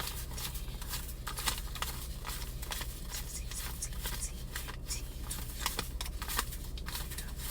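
Paper currency rustling and flicking as a stack of dollar bills is counted by hand, a run of irregular soft crackles and snaps.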